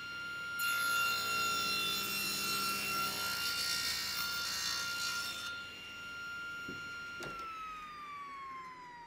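Table saw running with a steady whine, its blade cutting a tenon cheek in a workpiece held upright in a sliding tenon jig for about five seconds. About seven seconds in, the saw is switched off and the whine falls as the blade spins down.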